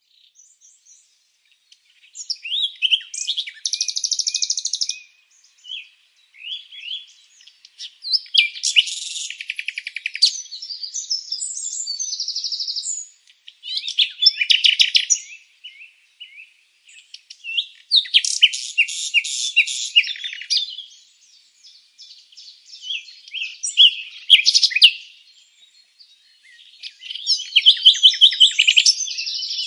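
Songbird singing in about six separate phrases, each a mix of rapid trills, buzzy notes and chirps, with short pauses between them.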